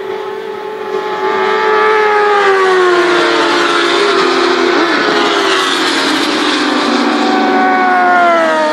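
Several racing motorcycle engines running at high revs together, getting louder about a second in, their pitches gliding slowly down as the bikes pass.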